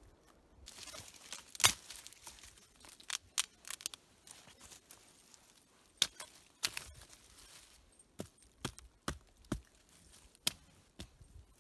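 Dry deadwood sticks and twigs being handled and laid on a shelter frame: a rustle of brittle twigs with irregular sharp cracks and knocks of wood, the loudest about a second and a half in.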